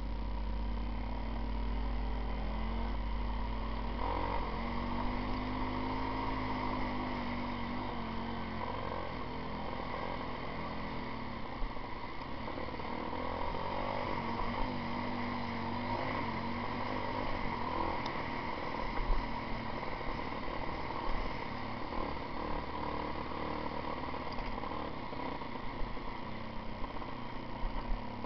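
Off-road motorcycle engine running while riding a rough dirt track, its pitch rising and falling with the throttle. Sharp knocks from bumps come more often in the second half.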